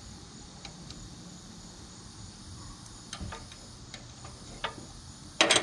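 Small metallic clicks and ticks of a wrench working a rocker-arm lock nut during a valve lash adjustment on a riding mower's engine, with a louder metal clank near the end. Crickets chirp steadily in the background.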